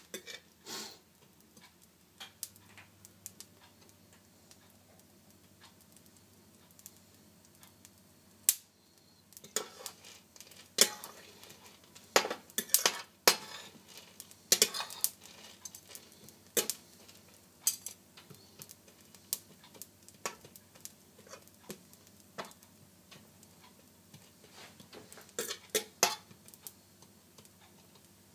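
Scattered sharp clicks and clinks of crockery and cutlery over a faint steady low hum, sparse at first and busiest in the middle.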